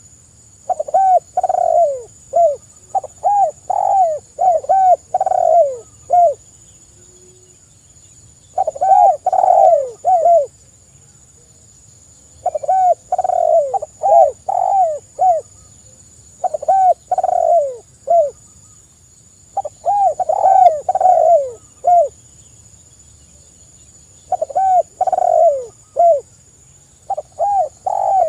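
Spotted dove (tekukur) cooing: phrases of several short, arched cooing notes, repeated about every three to four seconds with short pauses between.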